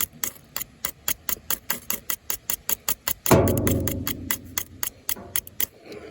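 Ferro rod being struck over and over with a knife, quick metal scrapes at about five a second, throwing sparks into tinder. A louder rush of noise comes about three seconds in.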